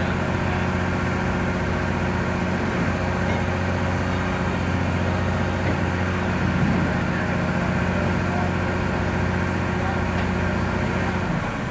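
Caterpillar tracked excavator's diesel engine running steadily with a low, even drone as it holds a suspended load; the low engine note drops away near the end.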